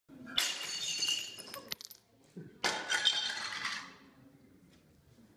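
Ceramic tiles shattering in two crashes a little over two seconds apart, each followed by shards clinking and ringing as they scatter and settle.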